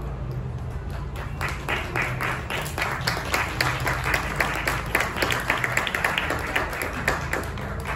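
Audience applauding. The clapping starts about a second in, builds, and dies away near the end.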